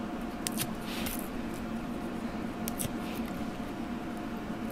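Light rustles and soft clicks of paper and a die-cut heart embellishment being handled and positioned on a card, a few times near the start and again around three seconds in, over a steady low hum.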